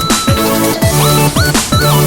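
Background electronic music with a steady, driving beat of deep kick drums and a synth melody that slides between notes.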